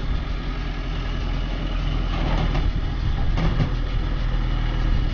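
JCB backhoe loader's diesel engine running steadily with a low drone as it works its arm.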